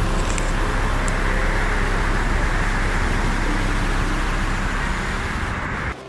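Steady roar of road traffic from passing cars on a busy highway, with a heavy low rumble. It drops away abruptly near the end.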